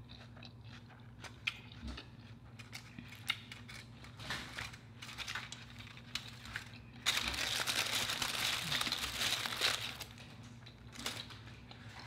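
Scattered small clicks of quiet chewing. About seven seconds in comes a few seconds of dense crinkling and crushing as a foil-and-paper food wrapper is crumpled up, ending suddenly.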